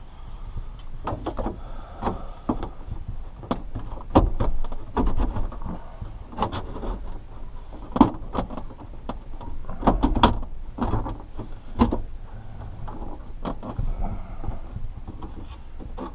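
Irregular clicks, taps and knocks of hard plastic and metal parts being handled and pried in a pickup truck's dash radio opening, some sharper and louder than others, over a low steady hum.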